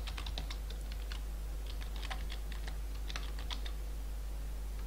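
Typing on a computer keyboard: several quick runs of keystrokes with short pauses between them, over a steady low hum.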